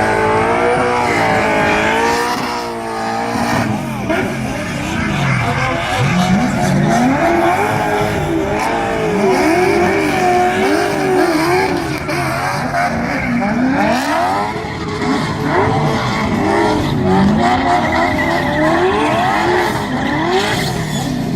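Drift car's engine revving hard, its pitch climbing and dropping over and over, with tyres squealing as the car slides.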